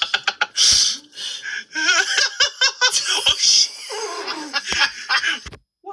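Laughter in repeated loud breathy bursts, breaking off shortly before the end.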